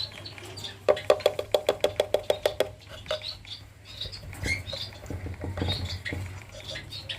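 A quick run of about a dozen sharp taps or clicks, about ten a second, followed by scattered short high chirps of lovebirds in their cages, over a steady low hum.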